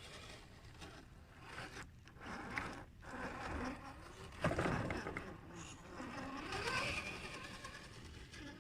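Electric motor and gear drivetrain of an Axial SCX10 II RC crawler whining, its pitch rising and falling repeatedly with the throttle as it crawls, with a louder knock about four and a half seconds in.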